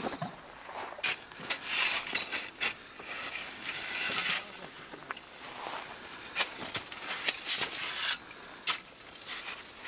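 Heavy folding cot with a stainless-steel square-tube frame being unfolded: the metal frame clicks and clanks as its legs spread out, mixed with rustling of the cot's fabric, in two spells of handling noise.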